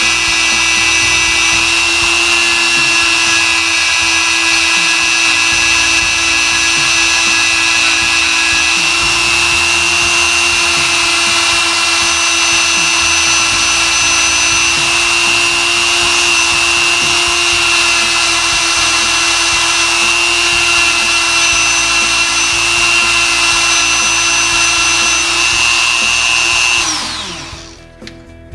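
Dremel rotary tool on a flex shaft, spinning a felt buffing bob loaded with polishing compound against a pistol's feed ramp to strip its coating: a steady high-pitched whine at middling speed. About 27 seconds in it is switched off and the whine falls away.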